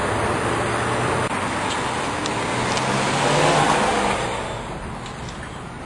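Street traffic: cars passing on the road with engine hum, one swelling to a peak about three and a half seconds in and then fading away.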